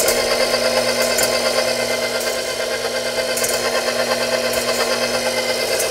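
KitchenAid stand mixer running steadily with the paddle attachment, its motor giving an even hum with a faint tick about once a second.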